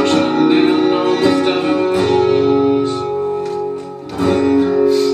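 Guitar being strummed in chords, a fresh stroke about every two seconds, each left to ring.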